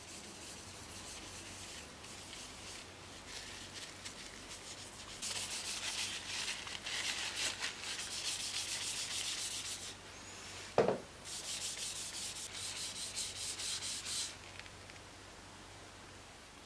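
Paper tissue rubbed briskly over a walnut knife handle, buffing in a beeswax and oil care cream: fast back-and-forth strokes, faint at first, then two louder runs. Between the runs, about eleven seconds in, comes one short squeak that falls in pitch.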